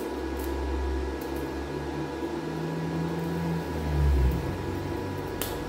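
Steady low electrical hum and buzz of a welding arc struck with a pencil's graphite lead as the electrode, stopping about four seconds in; a short sharp click near the end.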